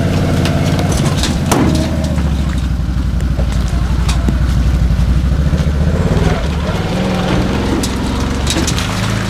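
A motor engine running steadily under way, its low drone easing a little about six seconds in, with scattered clicks and knocks over it.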